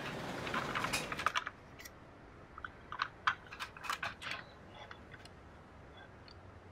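Toy playset pieces being handled: a rubbing, scraping rush for about the first second and a half, then a cluster of light clicks and taps.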